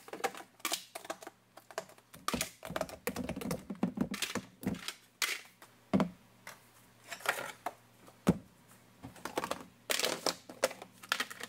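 Hard plastic food storage containers clacking and knocking as they are lifted, shuffled and set down on a countertop: a run of irregular light clicks and thuds.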